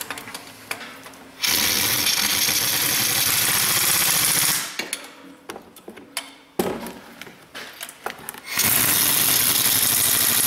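Small pneumatic impact wrench hammering bolts in, in two bursts of about three seconds each: one starts about a second and a half in, the other about a second before the end, with a few tool clicks between them.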